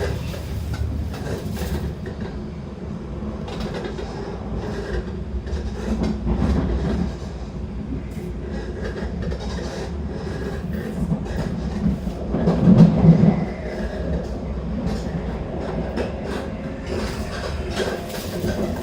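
Shinkansen passenger car running at speed, heard from inside the cabin: a steady low rumble with frequent clicks and rattles, swelling loudest about two-thirds of the way through. The passenger finds the rattling louder than usual and wonders whether it is still normal.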